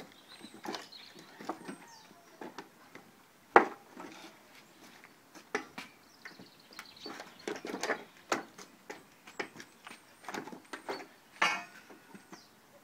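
Pallet buster bar prying deck boards off a wooden pallet: irregular creaks, cracks and knocks as the bar bites and the boards give, with one sharp loud crack about three and a half seconds in and a denser run of cracking in the second half.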